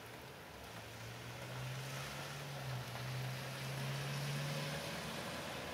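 Steady hiss of falling rain, with a distant engine's low hum swelling from about a second in and cutting out near the end.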